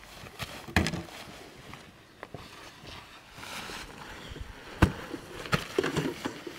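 A camping tent being unpacked and handled: fabric rustling and several sharp knocks, the loudest about five seconds in.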